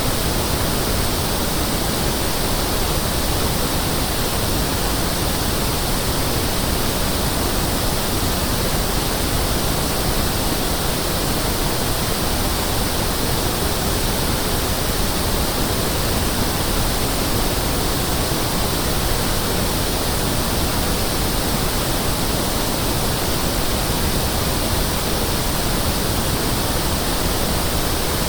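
Pink noise test signal: a steady, even hiss across the whole range from deep to high, unchanging in level.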